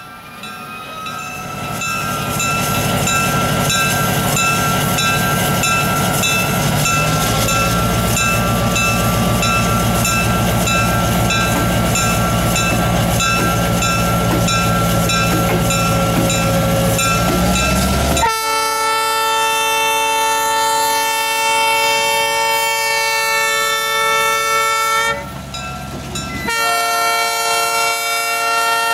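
Diesel switcher locomotives rolling past with a steady engine rumble, then a locomotive air horn sounding two long blasts, the first starting about two-thirds of the way in and the second near the end.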